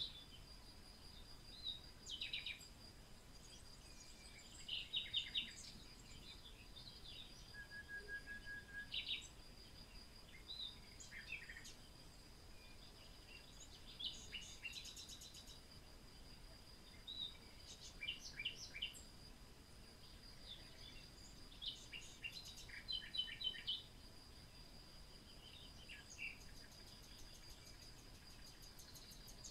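Quiet bird chirps and short runs of quick notes, scattered through, over a steady high insect drone.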